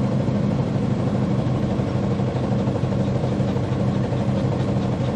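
Typhoon, a Romney, Hythe & Dymchurch Railway 15-inch gauge steam locomotive, working slowly along with its train: a steady low hum that pulses rapidly.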